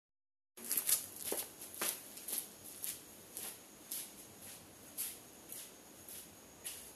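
Faint footsteps on a concrete floor, about two steps a second, over a thin steady high-pitched tone.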